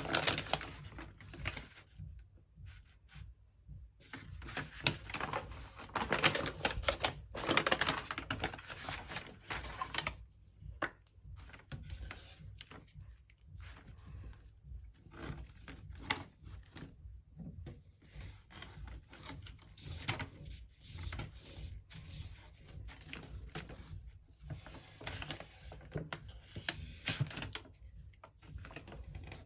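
Paper and thin cardboard being handled on a work surface: irregular rustling, scraping and light taps, loudest in bursts at the very start and from about five to ten seconds in.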